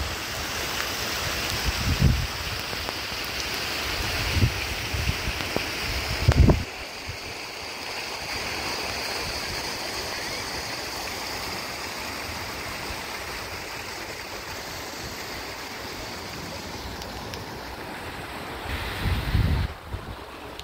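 Steady rain, with several low thuds of wind buffeting the microphone in the first seven seconds and again near the end.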